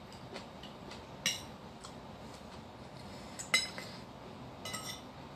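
Metal spoon clinking and scraping against a ceramic bowl while eating. A few sharp, briefly ringing clinks, the loudest about three and a half seconds in, with faint small ticks between them.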